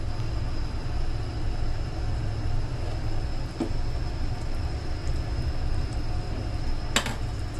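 Chicken wings simmering in soy sauce in a covered frying pan on a gas stove: a steady low rumble with the sauce bubbling. A light clink about three and a half seconds in as the glass lid is lifted, and a sharper knock near the end.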